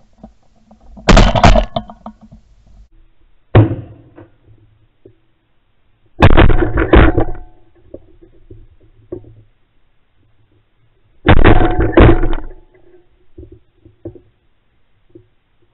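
Weatherby Element 12-gauge semi-automatic shotgun firing, recorded close from a camera mounted on the barrel: a shot about a second in, another near three and a half seconds, a quick string of shots around six to seven seconds, and a pair near eleven to twelve seconds.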